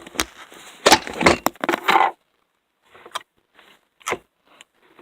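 Slime in a plastic container being handled: a dense burst of crackles and sharp clicks about a second in, then a few scattered clicks.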